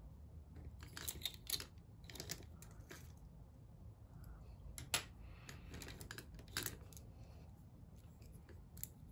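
Paintbrushes and pencils clicking and rattling against each other in a crowded brush pot as brushes are drawn out by hand: a scatter of light wooden clicks, the sharpest about five seconds in, over a faint low hum.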